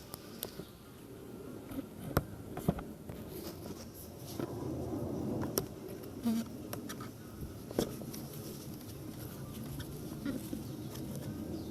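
Scattered short, sharp clicks and taps, half a dozen or so spread irregularly, over a steady low background hum.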